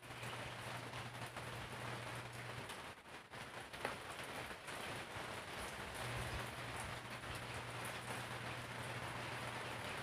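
Steady rain falling, an even hiss of drops. Underneath it a low steady hum runs for the first two or three seconds and comes back about six seconds in.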